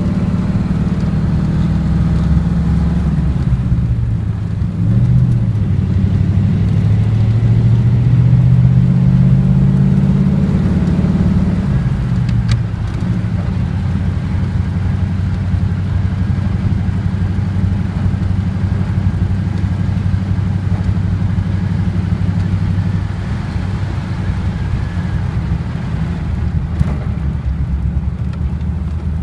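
Engine of a 1939 car running as it is driven: the engine note climbs for several seconds, falls sharply about twelve seconds in, then holds steady at a lower pitch.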